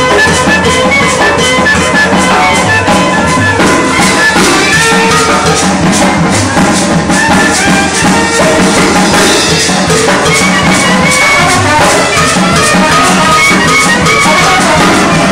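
Loud Latin dance music with brass and drums, played over a party DJ sound system, with a steady driving beat.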